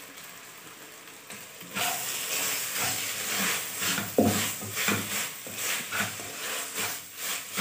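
Chicken mince frying in a wok with a faint sizzle. From about two seconds in, it is stirred briskly with a spatula: quick repeated scraping strokes against the pan over the sizzle.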